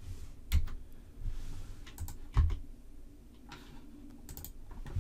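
A handful of separate keystrokes on a computer keyboard, spread out, the loudest about two and a half seconds in.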